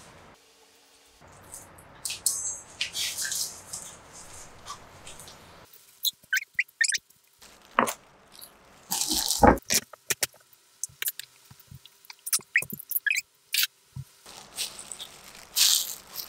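Handling noises while rice balls are shaped: clear plastic food gloves rustling, with scattered clicks and knocks of bowls and tray. The loudest is a single knock about nine and a half seconds in.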